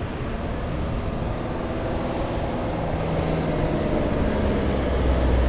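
A car coming up a steep hillside road, its engine and tyres getting steadily louder as it approaches.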